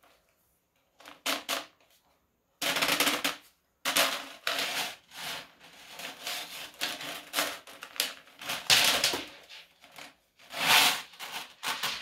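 A Husky hand drum auger being handled: its plastic drum knocks and its coiled steel cable rattles and scrapes in irregular bursts as it is turned over and the cable drawn out. There are a few light clicks first, and the clatter comes on about two and a half seconds in.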